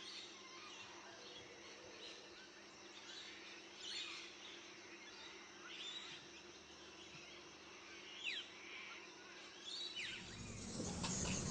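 Faint bird chirps: a few short, falling calls a couple of seconds apart, over a low steady hum. Near the end a louder rumble of noise rises.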